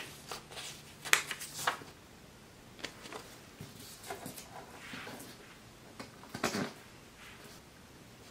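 Hands pinning paper cards to a cork board: scattered light clicks and taps of push pins and paper handling, the sharpest a little after a second in.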